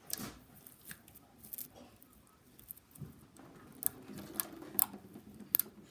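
Slime being kneaded and squeezed by hand: soft squelching with irregular sharp clicks and pops, the loudest few near the end.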